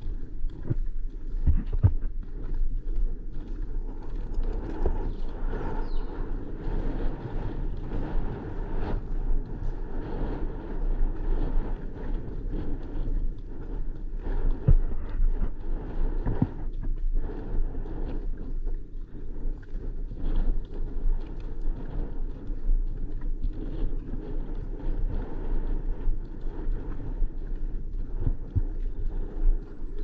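A ridden horse's hooves on a sandy forest track, with scattered knocks over a steady low rumble of wind on the GoPro's microphone.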